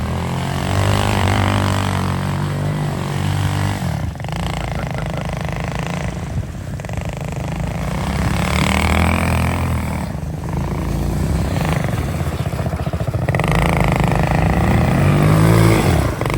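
Small youth ATV engines, CFORCE 110s, running as they are ridden, with the pitch rising and falling as the throttle opens and closes.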